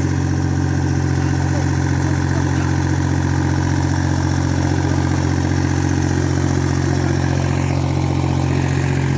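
Small backhoe's engine running steadily at an even speed.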